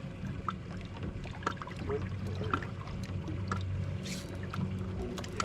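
Steady low hum of a fishing boat's motor, with short ticks about once a second.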